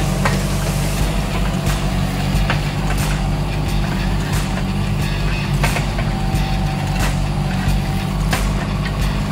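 Kubota mini excavator's diesel engine running steadily under load while the machine digs wet soil, with scattered sharp knocks from the working bucket and arm.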